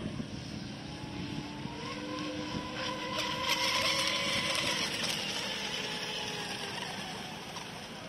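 Remote-control speedboat's motor whining at full speed as the boat races past. The pitch rises and then falls, and the sound is loudest around the middle, with the hiss of its hull and spray.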